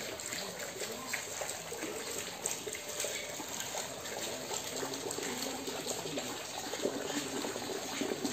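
Steady sound of running water, a continuous trickling flow.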